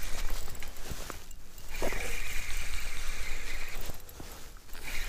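Spinning reel being cranked: a steady whirring for about two seconds, starting about two seconds in, then stopping. The crank-and-pause fits a stepped jig retrieve.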